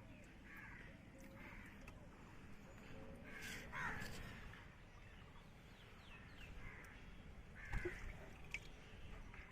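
Outdoor bird calls: several short harsh calls, the strongest about three and a half seconds in and again near eight seconds, over a low steady rumble, with a brief thump near eight seconds.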